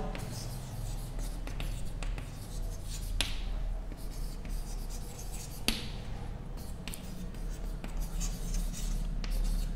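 Chalk writing on a chalkboard: faint scratching strokes, with two sharp taps of the chalk against the board about three and six seconds in.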